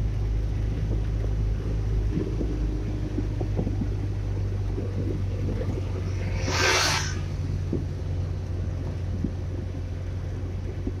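Car driving at steady speed, heard from inside the cabin: a constant low rumble of engine and road noise. A brief hiss rises and fades a little past halfway.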